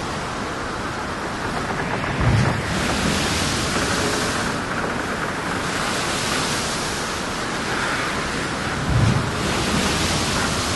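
Wind buffeting the microphone over the steady wash of the sea, the hiss swelling and easing every few seconds, with two low thumps about seven seconds apart.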